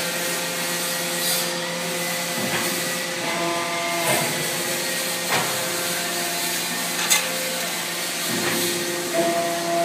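ACCURL CNC hydraulic shearing machine running: the hydraulic power unit hums steadily, its tone shifting a few times, with several sharp metallic clanks, the loudest about seven seconds in.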